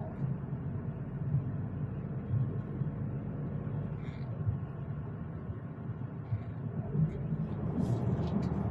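Steady low road rumble inside a moving car, getting a little louder near the end.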